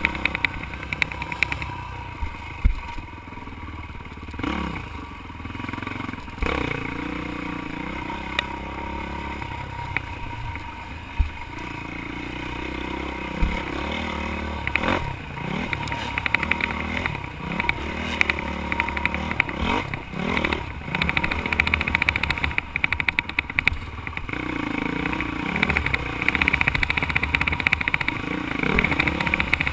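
A dirt bike engine running as it is ridden over rough trail, its pitch rising and falling as the throttle is opened and closed. Clatter and sharp knocks from the bike's chassis and suspension come through now and then as it hits bumps.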